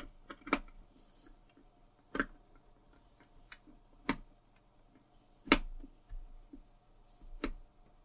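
Screwdriver and hard plastic vacuum-cleaner handle housing clicking and knocking as a screw is driven into the top of the handle: a series of sharp, irregular clicks, the loudest about halfway through.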